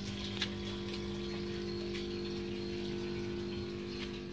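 Steady electric hum of an aquaponics sump pump with water running into the sump tank through the return pipes, and a few sharp drips. The hum cuts off near the end.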